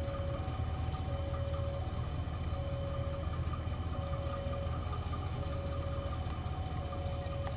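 A railway station's electronic two-tone warning signal sounds steadily, alternating a low tone and a higher tone about every three quarters of a second, the signal that a train is on its way in. Under it, insects chirp steadily and a low hum runs.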